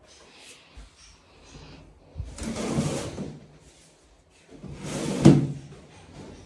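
A carpet being rolled up over a tiled floor: two brushing swishes of the carpet dragging and turning over, about two seconds apart, the second ending in a sharp knock.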